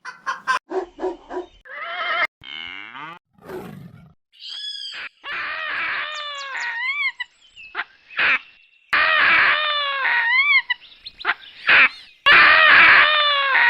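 Baboons calling: a run of harsh screams and short barking calls, with repeated pitched cries that rise and fall, in abruptly cut stretches.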